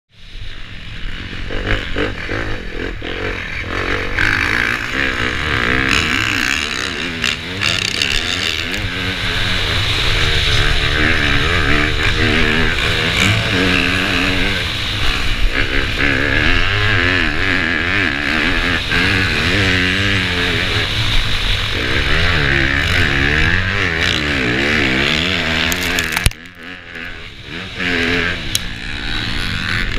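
Yamaha YZ250F's four-stroke single-cylinder engine at full race pace, the revs climbing and falling again and again as the rider works the throttle and gears. A few seconds before the end the engine note drops away sharply for a second or two, then picks back up.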